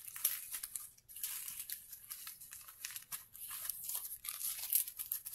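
Small plastic bags of diamond painting drills crinkling and rustling in irregular short bursts as they are handled and gathered into a pile.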